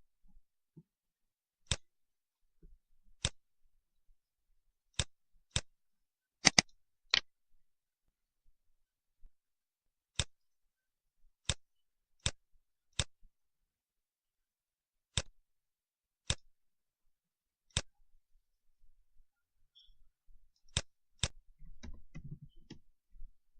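Computer mouse clicking: single sharp clicks at irregular gaps of one to two seconds, with a quick double click about six and a half seconds in. A faint low rustle near the end.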